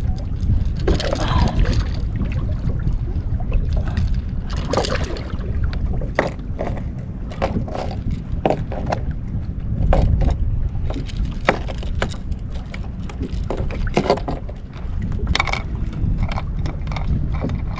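Knocks, clicks and scrapes of handling a fish and gear aboard a kayak while a small striped bass is unhooked, over a steady low rumble of wind and water.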